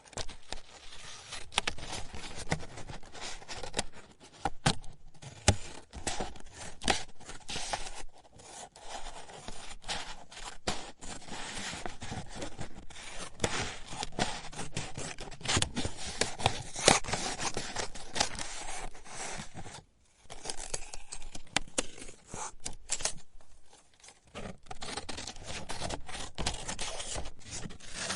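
Scissors cutting paper: a run of short snips and rasping cuts, with brief pauses between runs.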